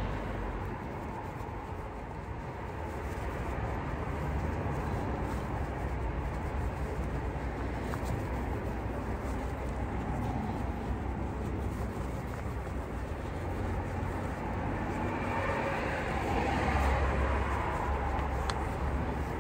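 Cloth rubbing over an alloy car wheel as it is wiped and polished, over a steady low rumble.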